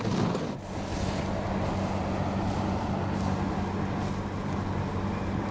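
Inside a car in storm winds: a steady rush of wind and rain against the car over the low, even hum of its engine running.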